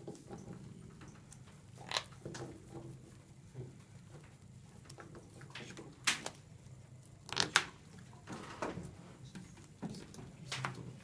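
Trading cards being handled on playmats: scattered short taps, slides and clicks, the sharpest about two, six, seven and a half and ten and a half seconds in, over a low steady room hum.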